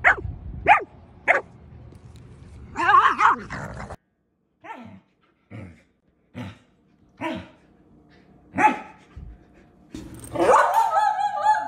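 Samoyed barking: three sharp barks about half a second apart, then a longer wavering bark-howl. After a short break come single short vocal grumbles about a second apart, and near the end a loud, wavering, pitch-bending howling whine.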